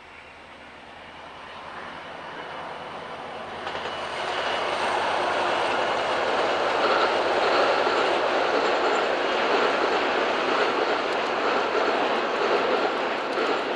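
Train approaching and passing close by: a rushing wheel-and-rail noise that builds over the first few seconds and then stays loud, with quick rail clicks near the end. It is a train delivering newly built AREX 2000 series electric multiple unit cars.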